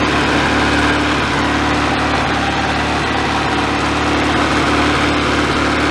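Honda CR-V's 2.0-litre four-cylinder engine idling with a misfire, which could be the spark plugs.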